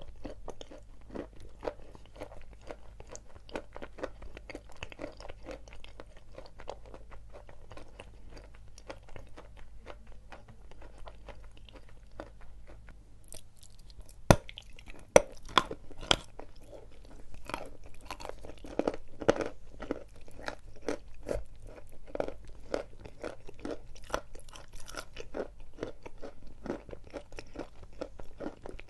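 Close-up chewing of dry edible chalk: a steady run of rapid, gritty crunches, with three loud, sharp snaps about fourteen to sixteen seconds in.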